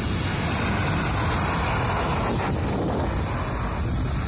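Rescue helicopter running on the ground, its turbine whine slowly falling in pitch, with wind buffeting the microphone.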